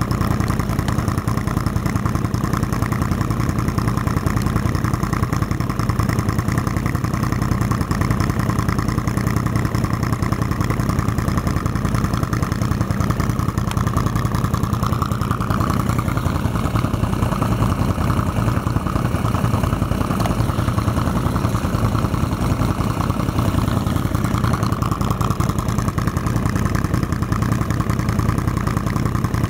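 ATV engine running steadily, its note shifting slightly about halfway through and again near the end.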